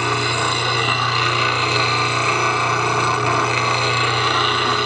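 Slow-speed 8-inch bench grinder running with a steady motor hum while a steel bowl gouge is ground against its wheel without a break, the tool rolled back and forth in a sharpening jig.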